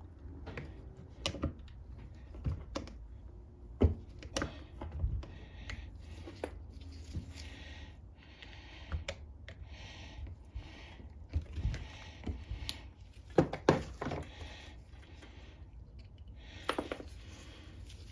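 Irregular small clicks and taps with short scraping rasps between them: a small hand tool picking and prying at a plastic seal in a Tecumseh lawnmower carburetor.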